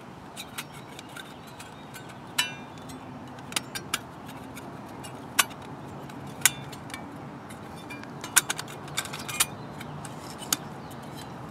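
Thin stainless steel panels of a Bushbox Pocket folding wood stove clicking and clinking against each other as they are fitted and snapped together by hand. The clicks come scattered and sharp, one with a short metallic ring about two and a half seconds in.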